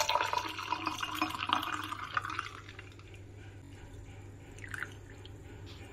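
Cooled black coffee poured from a steel saucepan into a glass mug over ice, the stream splashing for about two and a half seconds before it thins out and stops.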